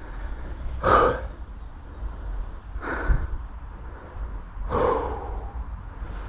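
A person breathing hard: three heavy breaths about two seconds apart, over a low steady rumble.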